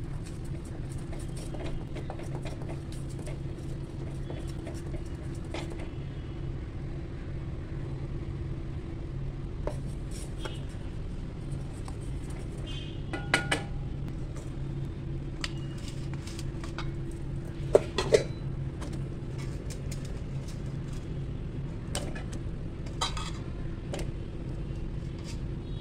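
A wooden spoon stirs and taps in a small steel pan of boiling sweet syrup, with scattered clinks and knocks against the pan, the loudest about 13 and 18 seconds in. A steady low hum runs underneath.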